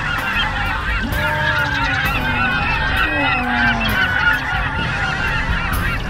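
A large flock of gulls calling all at once: a steady, dense racket of overlapping squawks and cries with no break.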